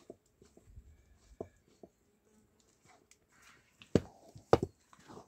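Wooden spatula stirring a thick mixture in an iron wok over a wood fire: soft scrapes and light taps, then two loud knocks of wood on iron near the end.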